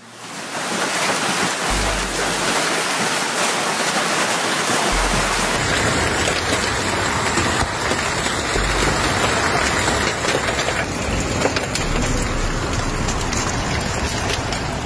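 Heavy hail pelting down, a dense steady rush of countless small impacts. At first it splashes into a swimming pool; about five seconds in it changes to hail hitting a paved patio and garden.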